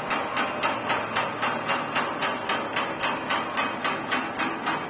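Yates American 32-inch bandsaw switched off and coasting down, its heavy wheels and blade still spinning with a regular clacking about four times a second.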